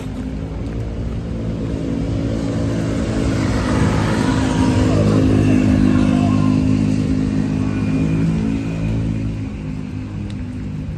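A motor vehicle passing on the street, its engine growing louder to a peak about halfway through and then fading away.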